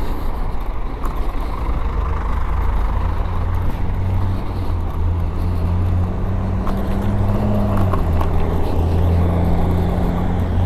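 Lenovo M2 electric scooter riding along on smooth pavement, with wind rushing over the microphone and road noise. A steady low hum runs under it, rising slightly and then dropping about eight seconds in.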